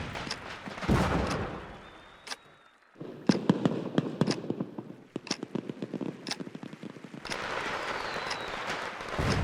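Fireworks: a bang about a second in that fades away, then a fast run of sharp firecracker cracks from about three seconds in. More scattered cracks follow, with a short whistle and dense crackling near the end.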